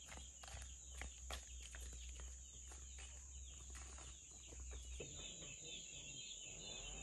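Faint farmyard sound: chickens clucking, over a steady high insect drone. Scattered light taps, like footsteps on a dirt path, for the first few seconds; after about five seconds a denser insect chirring joins.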